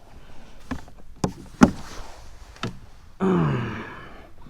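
A few sharp knocks, the loudest about a second and a half in. A little after three seconds in, a man lets out a long sigh that falls in pitch.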